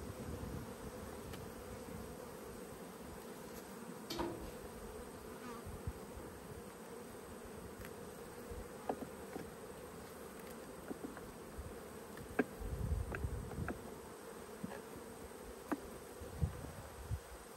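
A swarm of honeybees buzzing around an open hive in a steady hum, with scattered sharp clicks and knocks as the wooden frames are worked loose and lifted, most of them in the last few seconds.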